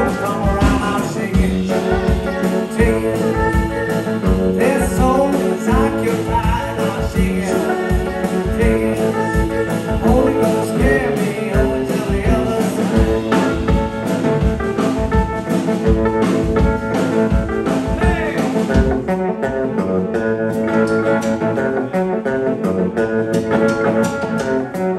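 Live blues band playing, with guitar over a steady drum beat and a singing voice through most of it; the voice drops out for the last few seconds, leaving the band playing.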